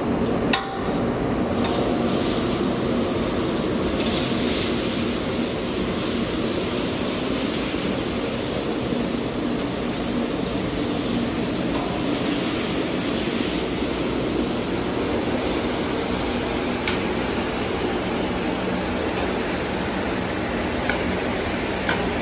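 Meat and shrimp sizzling on a large round flat-top griddle over a steady rushing noise, with a sharp knock about half a second in and a couple of light clicks near the end.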